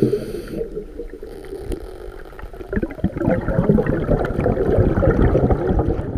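Underwater recording of scuba exhaust bubbles gurgling past the camera housing: quieter for a couple of seconds, then a fresh exhalation of bubbling about three seconds in.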